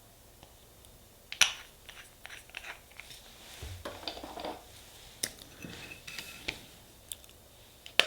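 Small clicks, taps and short scrapes of nail-stamping tools being handled: the metal stamping plate, the scraping card and the stamper. The sharpest click comes about a second and a half in.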